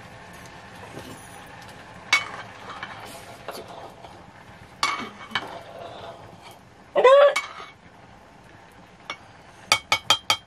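Metal ladle scraping and clinking in a metal cooking pot, with scattered sharp clicks. About seven seconds in a chicken squawks loudly, and near the end comes a rapid run of short, sharp clucks.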